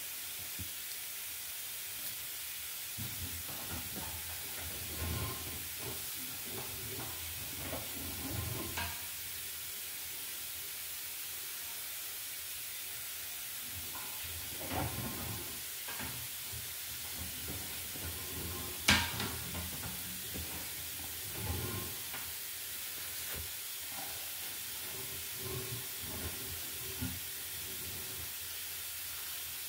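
Steady hiss with scattered knocks and clunks from a sewer inspection camera's push cable being fed down the line, one sharper click about 19 seconds in.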